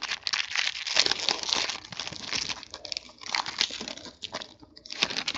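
Plastic wrapping crinkling and tearing as a sealed box of trading cards is unwrapped, in irregular crackly bursts with a brief lull about four and a half seconds in.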